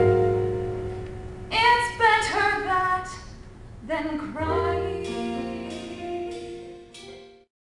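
Woman singing a show tune on stage: a held chord fades over the first second or so, then she sings two short phrases, and the sound cuts off abruptly near the end.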